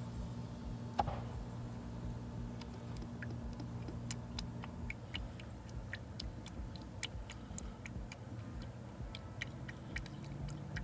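Motor oil being poured slowly from a quart bottle through a funnel into a car engine's oil filler, heard as a quiet run of scattered light ticks and glugs. A low steady hum underneath fades out about halfway through.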